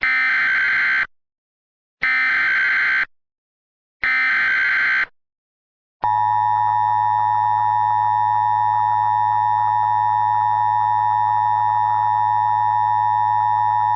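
Emergency Alert System tones: three one-second bursts of the SAME digital header, two seconds apart, then the two-tone EAS attention signal (853 and 960 Hz together), a steady harsh tone held for about eight seconds and cut off sharply. Together they mark the start of an emergency alert broadcast.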